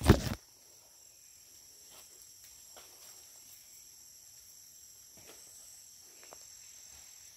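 A short loud burst of handling noise at the very start, then a steady, faint, high-pitched chirring of forest insects, with a few soft rustles of steps through leaf litter.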